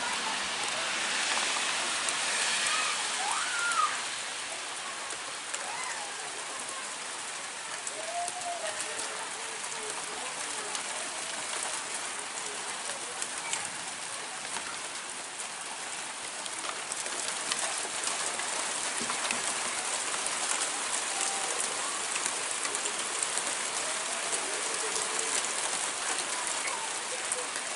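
Heavy rain falling in a steady dense hiss, with many individual drops ticking on surfaces. It is heavier for the first few seconds, eases a little, then grows heavier again in the second half.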